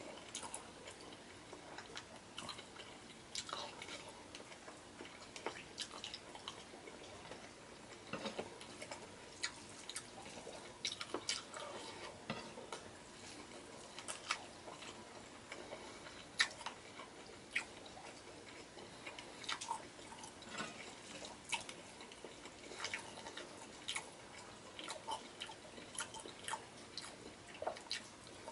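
Close-up wet chewing and lip-smacking of a man eating stewed beef and rice by hand: many irregular soft smacks and clicks.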